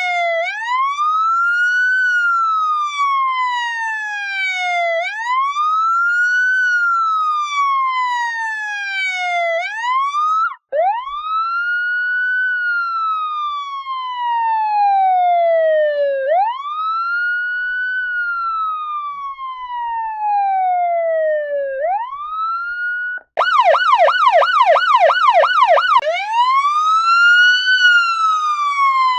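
Electronic police siren wailing: a tone that climbs quickly and falls slowly, repeating every five seconds or so. It breaks off briefly about ten seconds in, then resumes the wail. About 23 seconds in it switches for a few seconds to a fast yelp of about four or five sweeps a second, then goes back to the wail.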